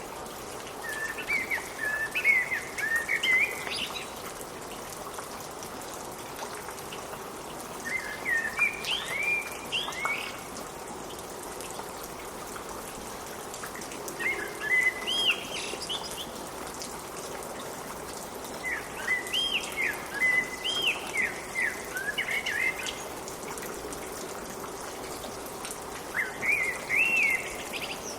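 Steady rain falling, with a songbird singing short phrases of quick up-and-down whistled notes about every six seconds, five phrases in all.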